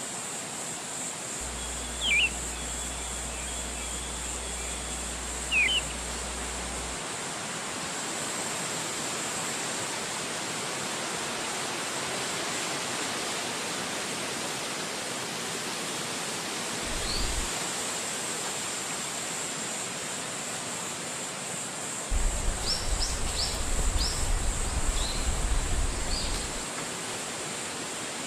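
Steady rushing of wind through forest trees, with a few short bird chirps: two falling chirps a few seconds apart near the start, a single one midway, and a quick run of chirps near the end.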